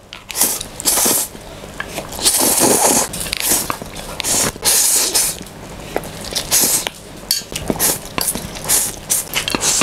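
Slurping and chewing of a mouthful of instant noodles: repeated wet, hissing sucking bursts at irregular intervals, with quieter chewing between them.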